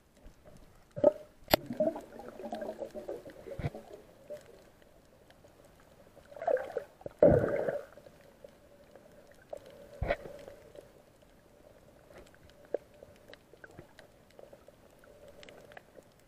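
Underwater sound of water gurgling and bubbling in two stretches, with a few sharp knocks over a faint steady hum.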